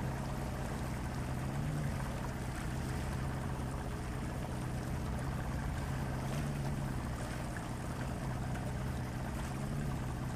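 Boat's outboard motor running at a steady low speed for trolling, a constant low hum, with water and wind noise washing over it.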